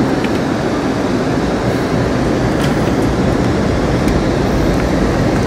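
Steady running noise of an Amtrak passenger train in motion, heard from inside the coach, with a few faint high clicks.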